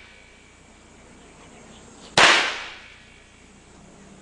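A single gunshot from an MP5-style submachine gun fired in semi-automatic, about two seconds in, with a short echo trailing off after the crack.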